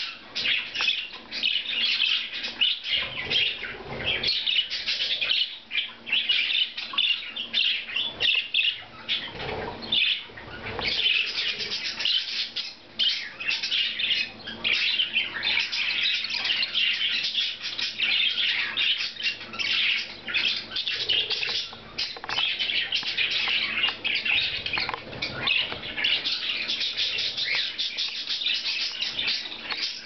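A group of budgerigars chirping and warbling, a dense run of quick, high chatter that goes on without a break.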